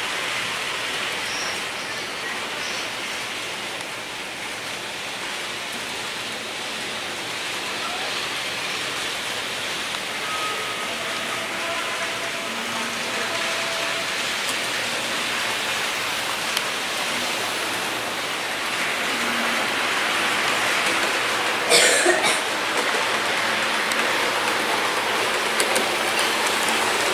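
Steady rolling hiss of a model train running along the layout's track, with one sharp click about 22 seconds in.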